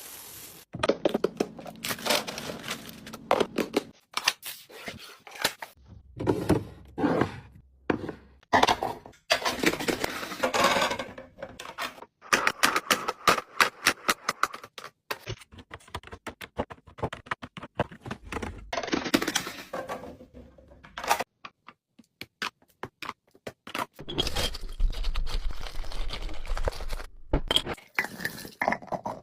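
Containers and packaging handled and set down, with repeated scrapes, knocks, clinks and some rustling or tearing, in short bursts with brief pauses.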